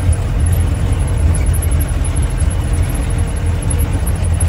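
Off-road jeep's engine running as it drives along a rough track, heard from inside the open cabin as a steady, loud low rumble.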